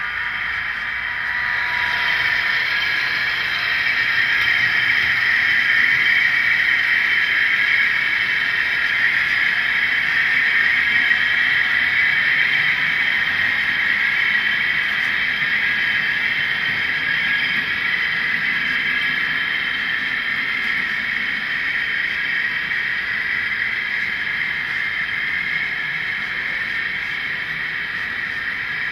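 Model train running on the layout's track: a steady hiss of small motors and metal wheels rolling on rails, swelling a couple of seconds in and slowly easing off.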